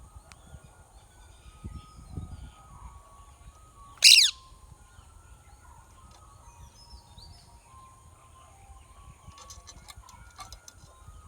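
Rose-ringed parakeets calling: one loud, short screech falling in pitch about four seconds in, among faint scattered chirps and short whistles. A steady high hiss runs underneath.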